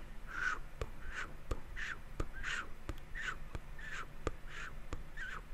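Close-up mouth sounds into the microphone: a run of eight short raspy mouth sounds about 0.7 s apart, with sharp tongue clicks between them.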